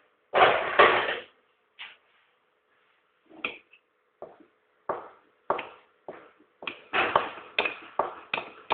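Cake batter being mixed in a mug, the stirring utensil tapping against the sides in short sharp strokes that come faster and more regularly near the end, about two a second. A short loud clatter comes near the start.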